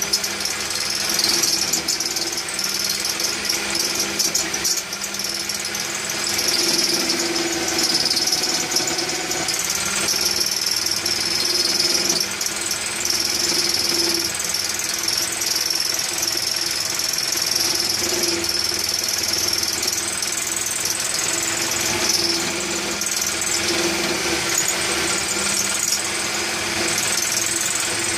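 Electric hand drill running steadily as the drive motor of a homemade wood lathe, with a hand chisel scraping the spinning wooden workpiece. The high cutting noise rises and falls as the tool is worked along the wood.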